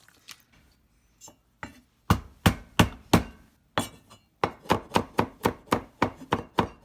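Kitchen knife chopping on a cutting board. A few light taps, then sharp even strikes at about three a second, with a short pause before a steady run.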